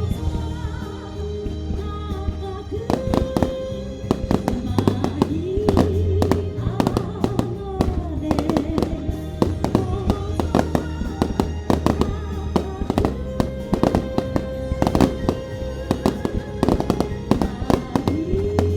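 Aerial fireworks bursting, with rapid crackling reports that begin about three seconds in and come many times a second, over music with sustained notes and a steady bass.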